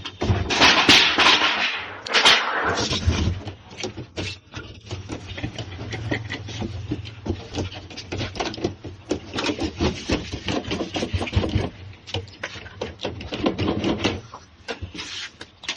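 A scrap refrigerator being broken apart: irregular knocks, clanks and scraping of its metal casing being worked, harshest in the first couple of seconds.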